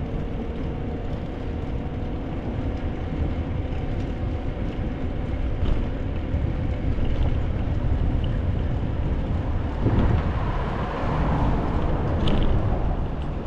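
Wind rushing over the microphone and the rumble of bicycle tyres rolling across a bridge deck, a steady noise that grows somewhat louder a few seconds in. A few short clicks near the end.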